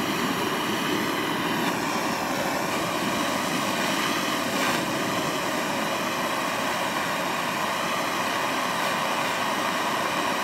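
Gas blowtorch burning steadily, its flame played on a steel knife blade to heat it: a constant rushing noise.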